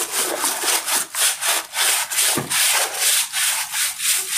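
Rhythmic scrubbing of a wet plastic part by hand, about four to five quick rubbing strokes a second.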